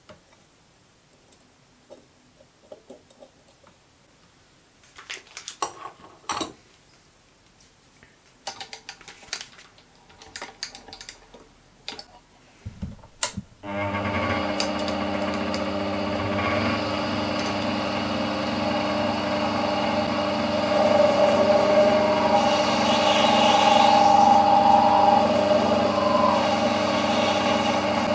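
Light clicks and knocks of hand tools and a caliper being handled, then about halfway through a bench-top mini lathe starts and runs steadily with a motor and gear whine made of many tones. A few seconds later it grows louder for a while as the tool turns the reduced section on the small brass part.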